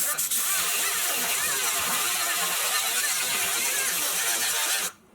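Metalworking tool on the sheet-steel transmission tunnel, running with a steady, loud hiss and cutting off abruptly near the end.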